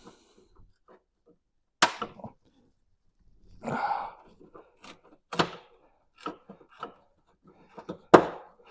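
Scattered sharp knocks and clicks of hand tools and parts being handled on the car's bodywork, with a longer scraping sound about four seconds in. The last knock, near the end, is the loudest.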